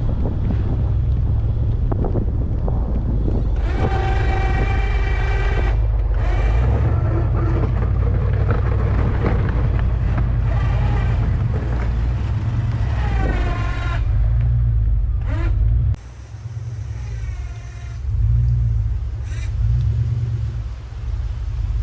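Ram pickup truck running with a heavy low rumble while plowing snow, with several short whining tones on top, one of them rising in pitch.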